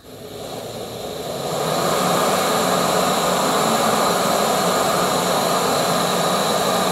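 Gas burner of a Campingmoon XD-2F canister stove burning with a steady rushing sound, growing louder over the first two seconds as the valve is opened up to a tall flame, then holding steady.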